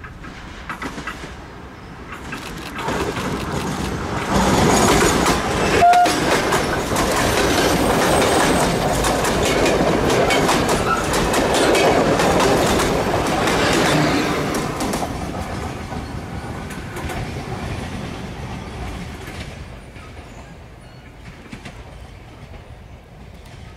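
Ganz-MÁVAG D1 diesel multiple unit passing close by, its wheels clattering over the rail joints. The noise builds over the first few seconds, stays loud for about ten seconds as the cars go past, then fades away.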